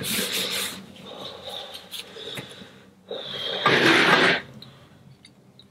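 Close-up mouth noises from eating very spicy instant noodles, coming in noisy bursts; the loudest lasts under a second, about four seconds in.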